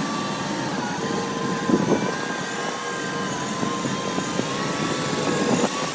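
Caterpillar wheel loader's diesel engine running as the machine drives with its bucket raised, with a steady whine over it. There is a clunk about two seconds in.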